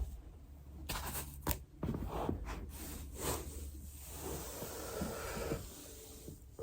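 Body shifting on a foam roller: fabric rubbing and scraping against the foam, with a few sharp clicks between about one and two seconds in.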